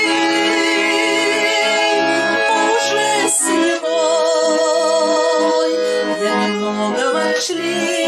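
Garmon (Russian button accordion) music: a wavering melody over sustained chords and regular bass notes, played between sung lines of the song.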